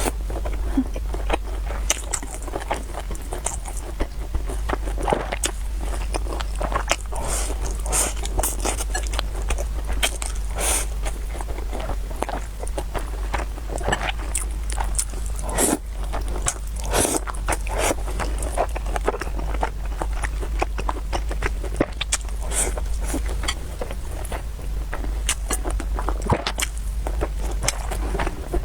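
Close-miked eating sounds: a person biting and chewing food, with many short wet clicks and crunches, over a steady low hum.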